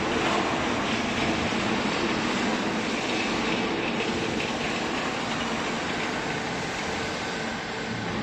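Small hydraulic clothing baler running: a steady mechanical noise with a faint hum in it.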